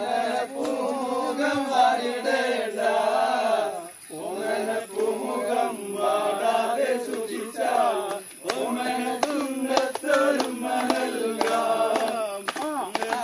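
A group of men's voices singing or chanting together, in long phrases with short breaks about four and eight seconds in.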